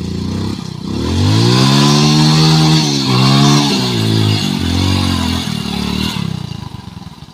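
Hero Splendor Plus's single-cylinder four-stroke engine revving hard under load as the bike is ridden through mud. The revs climb about a second in, dip and rise again twice, then drop away near the end.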